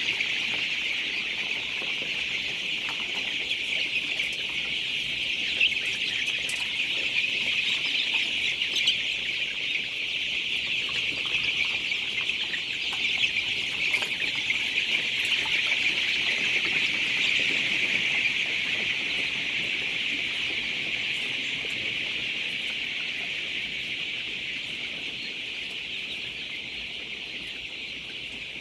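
A large flock of chickens in a poultry house, many birds calling at once in a dense, continuous high chorus that eases off a little near the end.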